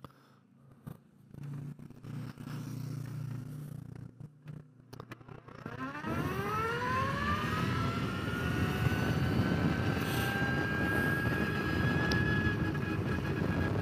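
Energica electric motorcycle pulling away and accelerating: after about five seconds its motor whine climbs steeply in pitch, then levels off into a steady high whine over a rising rush of wind and road noise.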